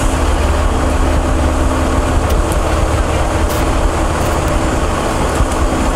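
A motor running steadily: a low rumble with a steady hum over it.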